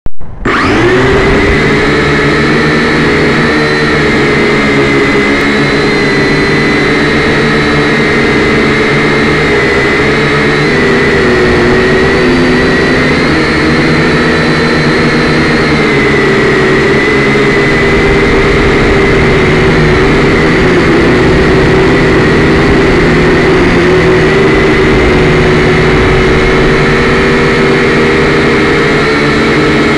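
Syma X5C-1 quadcopter's four small electric motors and propellers whining close to the onboard camera's microphone, starting suddenly about half a second in as it spins up to take off. The loud, steady whine then wavers slightly in pitch as the drone flies.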